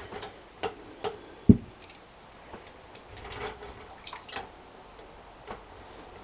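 Hot glass canning jars being lifted from a water-bath canner and set down on a towel: scattered light clicks and knocks with water dripping, and one loud low thump about a second and a half in.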